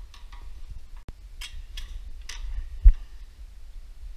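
Scattered light metallic clicks and clinks of engine parts being handled and worked loose, with one louder dull thump a little before three seconds in, over a low steady rumble.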